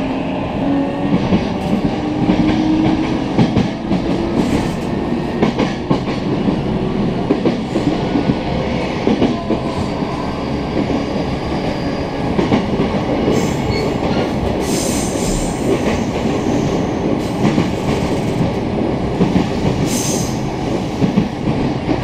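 E233-series electric commuter train running, heard from inside the car: a dense, continuous rattling and knocking over the running noise, which is abnormal for this train. A few brief high squeals come around the middle and again near the end.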